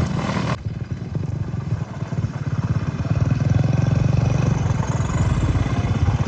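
Tractor diesel engine running with a rapid, even firing pulse, growing louder about three seconds in.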